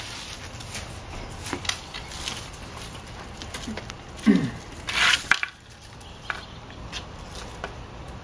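Small metal-tined rake scraping and tapping on a concrete sidewalk among leafy clippings in scattered strokes, with a brief low falling sound just after four seconds and a louder scrape about five seconds in.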